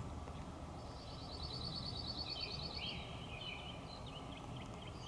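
Steady low background noise, with a bird singing faintly: a rapid high trill starting about a second in, followed by a few lower chirps.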